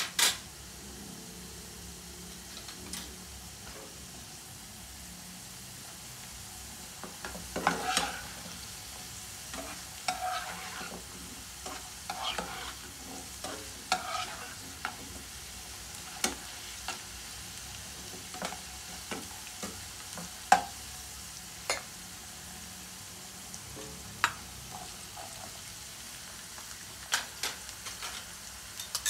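Potato cubes frying in oil in a nonstick frying pan, a steady sizzle. From about seven seconds in, a spatula stirs them, clicking and scraping against the pan every second or two.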